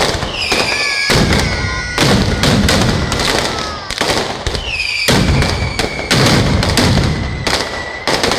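Mascletà: firecrackers strung on overhead wires detonating in a rapid, continuous barrage of bangs that surges in waves. High whistles falling in pitch sound through it near the start and again about five seconds in.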